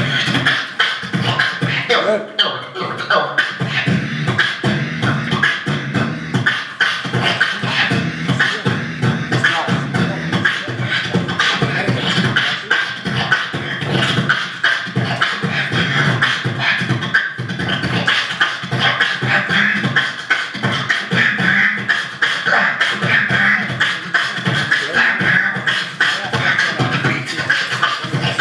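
A man beatboxing into a handheld microphone cupped over his mouth: a continuous fast rhythm of vocal drum strokes with deeper bass sounds.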